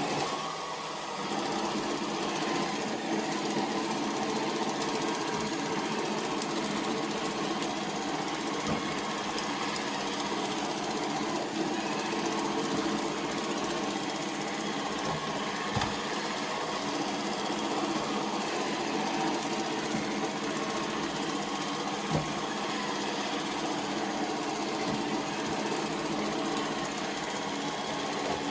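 Robot vacuum running: a steady motor and brush hum, with a few short knocks along the way.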